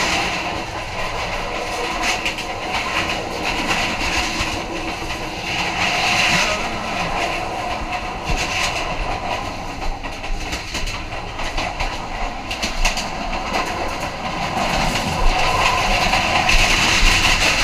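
Sonar Bangla Express passenger train running at speed: a steady rattling rumble of the coaches, with wheels clacking over the rail joints, and the clacks grow sharper near the end.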